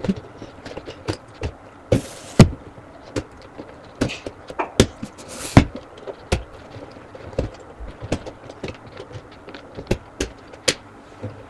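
Irregular clicks and knocks of a phone tripod being handled and set up, its legs and fittings clacking together and against the table. There are two short rustles, about two seconds in and again near the middle.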